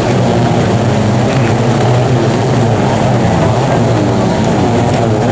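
Racing jet-ski engines running hard, a steady loud drone with several pitches wavering up and down together.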